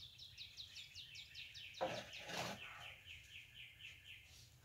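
A songbird's long rapid trill of short high chirps, about six a second, slowly dropping in pitch and stopping near the end. About two seconds in come two brief soft noises, the louder first.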